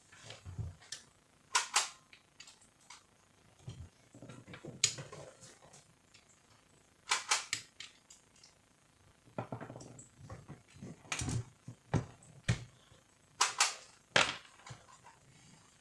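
Sharp clicks and clacks of metal and plastic parts as a Canon iR2016/iR2018 fuser unit is handled at its end bracket and wiring, coming in scattered clusters every few seconds with soft rustling between.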